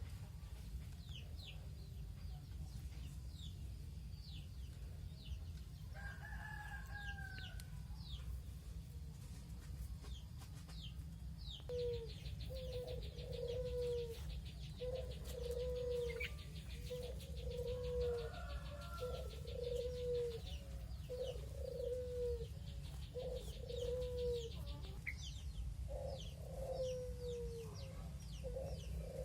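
A chicken calling in a run of short falling notes, about one a second, starting about twelve seconds in, over a steady low hum. Small birds chirp throughout, and a fast high trill runs through the middle.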